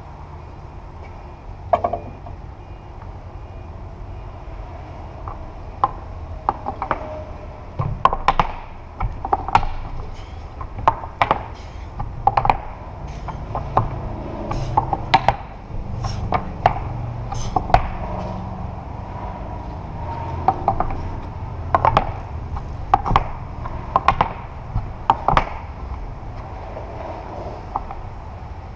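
Wooden pegs knocking into the holes of a peg board as a climber moves up it: irregular sharp wooden knocks, often in quick clusters, over a steady low rumble. The knocks start about two seconds in and come thick and fast from about six seconds in.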